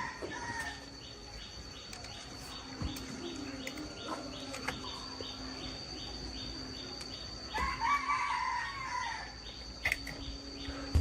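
Rooster crowing: one crow trails off just after the start and another comes about eight seconds in. Underneath are a steady high whine and a faint, even ticking.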